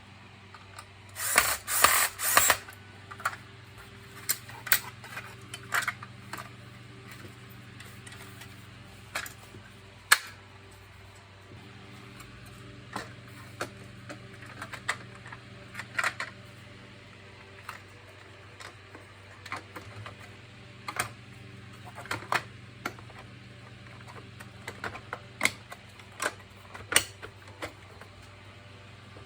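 A power screwdriver runs in three short bursts about a second in. Then hard plastic clicks and knocks follow at irregular intervals as the vacuum cleaner's casing parts are handled and fitted together.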